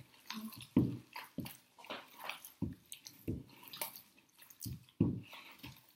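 Hands kneading a wet meatloaf mixture of raw ground beef, egg, milk and breadcrumbs in a mixing bowl: irregular soft squelches, about one or two a second.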